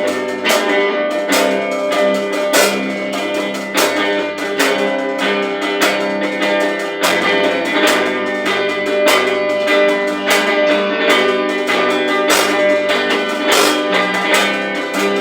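Instrumental intro of a worship band rehearsal: guitar strummed in a steady rhythm over held chords.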